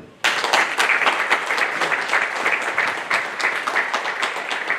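An audience applauding: dense hand-clapping that breaks out suddenly a moment in and carries on steadily.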